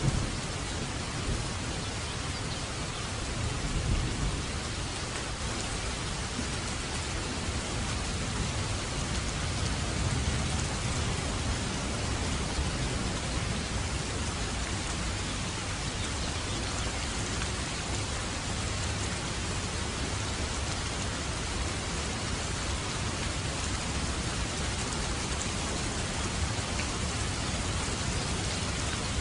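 Steady rain falling, a continuous even hiss, with a low rumble of distant thunder about four seconds in.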